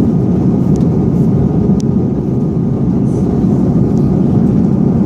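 Steady cabin noise inside an Airbus A330-300 airliner during descent: an even low drone of engines and airflow, with a few faint small clicks.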